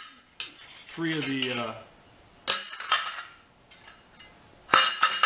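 Formed 14-gauge stainless-steel sheet pieces clanking against each other and the steel welding table as they are handled and set down: several sharp metallic knocks with short ringing, the last one the loudest, near the end.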